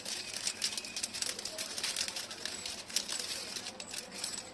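Florist wrapping paper rustling and crinkling as the sheets are handled and tucked around a bouquet: a dense run of quick crackles.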